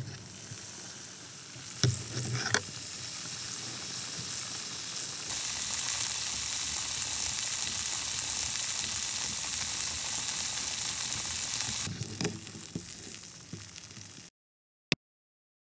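Steady frying sizzle, a dubbed-in sound effect since the toy patties in the plastic pan are not actually heated. A couple of sharp plastic spatula taps come about two seconds in. The sizzle cuts off suddenly near the end, followed by one sharp click.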